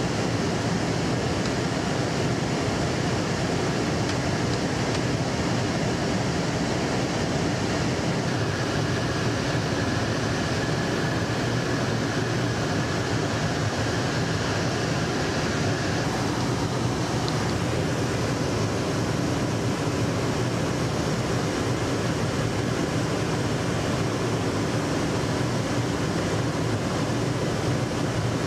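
Steady in-flight noise of a jet aircraft heard from inside: an even rush of airflow and engine drone. A faint thin whistle comes in about eight seconds in and fades out about halfway.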